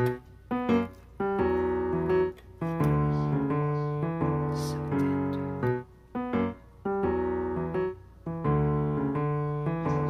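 Piano music: notes and chords played in short phrases, with brief breaks between them.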